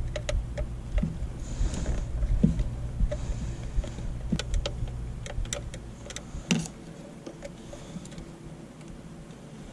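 Irregular clicks, taps and light knocks of dashboard parts being handled and a connector being unplugged behind a car radio, over a low hum that fades out about seven seconds in.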